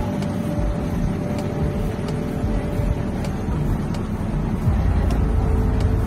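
Street traffic noise: vehicle engines running as a steady low rumble, which grows louder about two-thirds of the way through.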